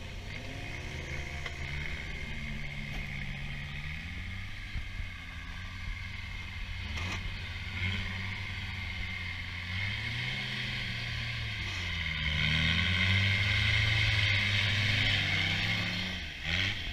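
Off-road racing buggy's engine revving up and down again and again as it churns through deep mud, getting louder near the end as it comes closer.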